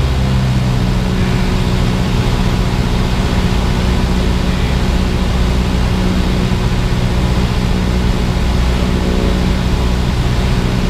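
Cessna 172R's four-cylinder Lycoming engine and propeller running at a steady power setting, heard from inside the cabin as a constant drone.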